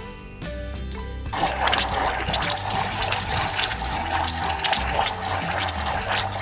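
Sugar and water syrup boiling in a small saucepan for caramel, a dense bubbling that starts suddenly about a second in. Background music plays throughout.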